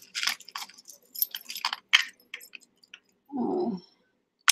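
Clear plastic bag crinkling and metal jewelry chain rattling as a long chain is drawn out of a bag of mixed costume jewelry, in irregular short rustles and clinks. A brief hum of voice comes about three seconds in.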